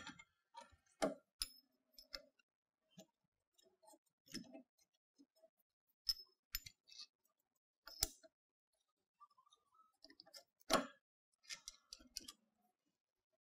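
Irregular light metallic clicks and knocks as a steel compression platen is handled and fitted onto the crosshead stud of a universal testing machine, a few with a short ring; one louder knock comes near the end.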